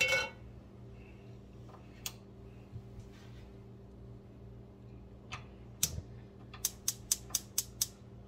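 Kitchen work sounds over a steady low hum: a few isolated light knocks, then an even run of about seven sharp clicks, some five a second, before the end.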